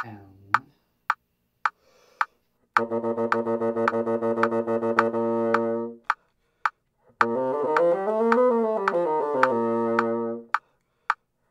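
Bassoon playing over a metronome clicking at 108 beats a minute. First comes a run of quick tongued sixteenth notes on low B-flat. After a short rest it plays a slurred one-octave B-flat major scale in sixteenths, up to the ninth and back down.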